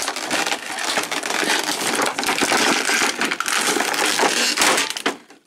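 Clear plastic clamshell packaging crackling and creaking as a toy's saucer section is pried out of it. The crackling stops shortly before the end.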